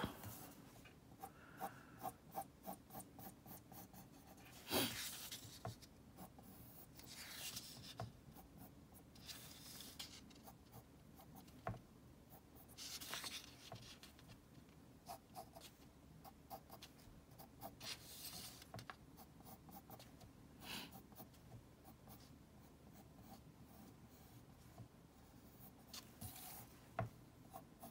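Pencil lead scratching faintly on paper as a circle in perspective is drawn: many short strokes and several longer curved sweeps.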